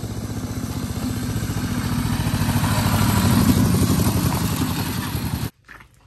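Two-wheel walking tractor pulling a trailer, its single-cylinder diesel engine chugging with a fast, even beat and growing louder as it comes closer. Cuts off suddenly about five and a half seconds in.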